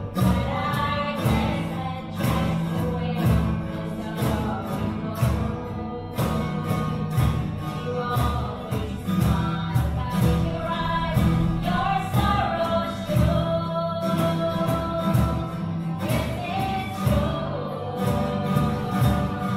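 Several women singing a slow love song together over strummed acoustic guitars, the strumming steady and even.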